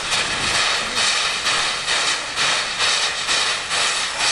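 Steam locomotive moving off slowly, its exhaust hissing out in regular chuffs about twice a second.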